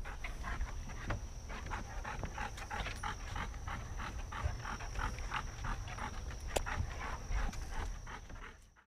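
A dog panting close to the microphone in quick, even breaths, over a steady high-pitched whine.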